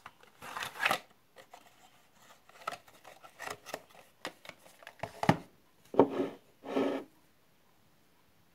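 A cardboard watercolour paint box being handled: a series of short scrapes and rattles of cardboard and the plastic paint tray, the loudest about a second in and again between five and seven seconds in, when the box is put down on the table.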